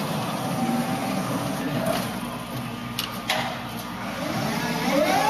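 Magaziner EK1500 very narrow aisle turret truck running: a steady low electric hum with two sharp clicks about three seconds in, then its electric motor whine rising in pitch near the end and levelling off.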